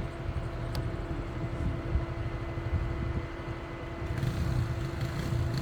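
A motor vehicle running, with a steady hum and a heavy, uneven low rumble. There is a single sharp click under a second in.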